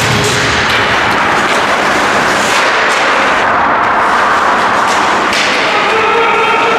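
Ice hockey rink sound during play: a steady, loud, noisy wash with a few sharp knocks, as of skates, sticks and puck on the ice.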